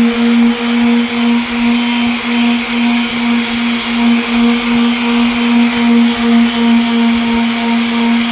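Electric sander running steadily against a plastic headlight lens, a constant motor hum over the hiss of abrasive paper, the level swelling and dipping about twice a second as it is worked across the lens.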